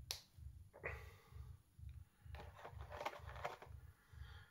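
Faint clicks and light rustling of small plastic action-figure parts being handled and fitted together, busiest in the middle, over a low hum that pulses about twice a second.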